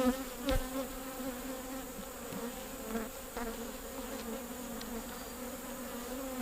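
Honeybees buzzing around an opened hive, a steady hum, with one knock about half a second in.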